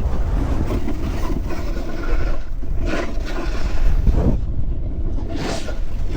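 Snowboard sliding and carving over packed snow, with wind rumbling on the camera's microphone; a few louder swishes in the second half as the edges dig into turns.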